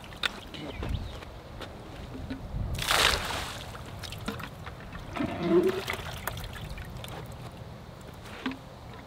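Live shiners and water flung from a plastic bucket splashing onto a pond's surface, one main splash about three seconds in, with water trickling and dribbling off the bucket around it.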